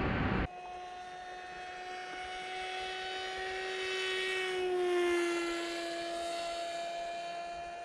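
About half a second of loud wind rush on the plane's onboard camera that cuts off suddenly, then the whine of the Grom FPV plane's Brotherhobby Avenger 2808 brushless motor and HQprop 8x4.5 propeller flying past. The whine swells to its loudest about five seconds in, dropping slightly in pitch, then fades.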